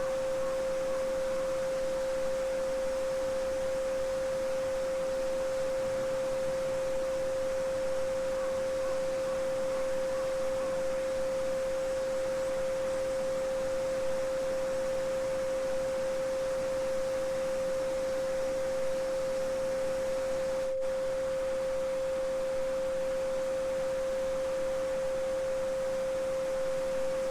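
A steady 528 Hz pure sine tone, the solfeggio frequency used as a sleep aid, held without change over the even rushing of a babbling brook. The water sound dips for a moment about two-thirds of the way through.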